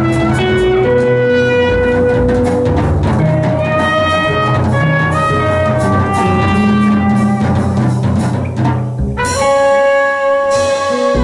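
Live jazz quartet: a trumpet plays the melody in held notes over guitar, double bass and drum kit. About nine seconds in, the trumpet starts a long held note.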